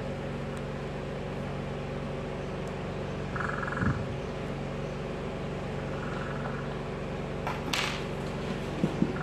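Steady low hum in the background. Over it come a few small knocks and clicks as drill gearbox parts and tools are handled and set down on the bench, and a short hissy rustle near the end.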